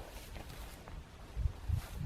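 Footsteps in snow: a few soft steps about a second and a half in.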